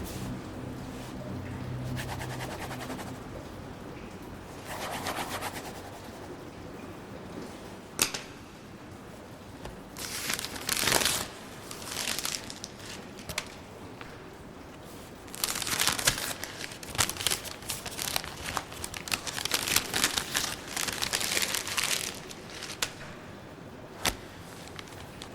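Rustling, crinkling noise in several bursts, with a long, busy stretch in the second half, and a few single sharp clicks.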